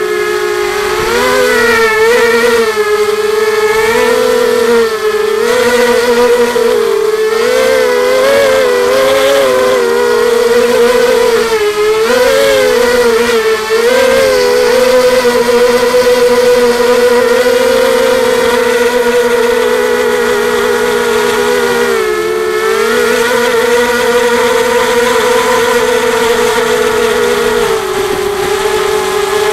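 FPV racing drone's electric motors and propellers whining steadily, heard from the craft's onboard camera. The pitch dips and climbs back several times as the throttle changes.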